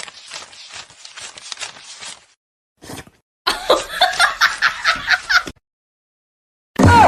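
A person laughing in quick repeated bursts, quieter at first and loudest about halfway through.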